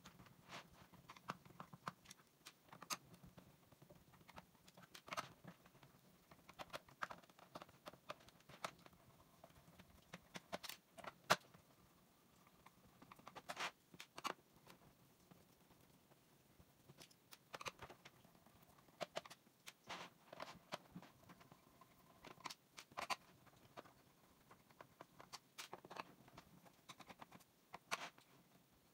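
A screwdriver turning out small screws from a plastic keyboard base: faint scraping and scattered sharp clicks at irregular intervals, some in quick clusters, as the bit works in the screw heads and the loose screws and the keyboard tap on the table.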